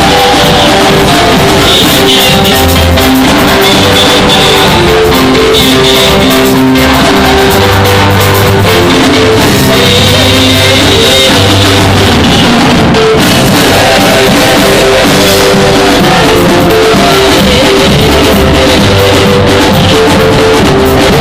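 Live church band playing an upbeat instrumental passage on drum kit, electric guitar and bass.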